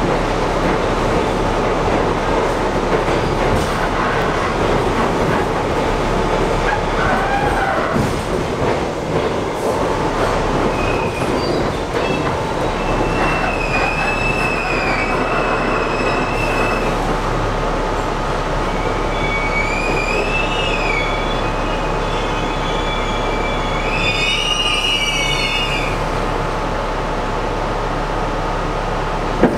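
Inside a moving New York City subway car, an R62A on the 1 train: a steady rumble and rattle of wheels on track, with wheels squealing in wavering high tones three times in the second half.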